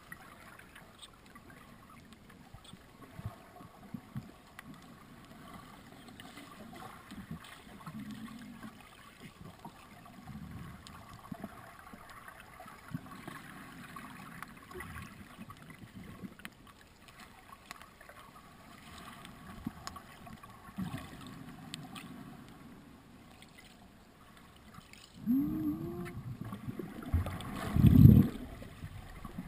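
Muffled underwater noise picked up through a GoPro's waterproof housing, with scattered faint knocks. Louder bumps and scrapes come in near the end, the loudest as the diver's hands grab the rock.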